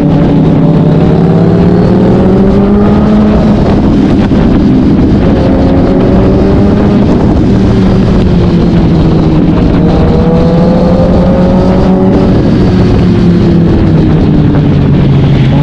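Kawasaki Z900 inline-four engine through an SC-Project S1 exhaust, heard onboard while riding. The loud engine note climbs and falls in pitch several times as the throttle is worked through the gears.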